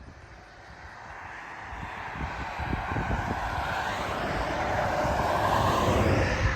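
A vehicle passing close by: its noise builds steadily for several seconds, then drops away quickly near the end.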